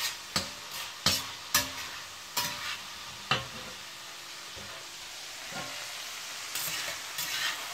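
Minced meat sizzling as it fries in a frying pan, with a spatula scraping and knocking against the pan as it is stirred. Several strokes come in the first three seconds, then a stretch of plain steady sizzling, then more scraping near the end.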